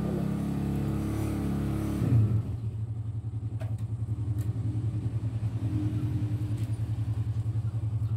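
A motor engine running steadily, a low hum with a fast even pulse. Its pitch shifts and it briefly swells about two seconds in.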